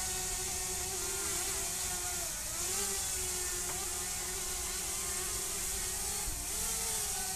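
DJI Mavic Mini 2 drone's propellers buzzing steadily as it hovers and comes down to land, the pitch dipping briefly a few times as the motors change speed.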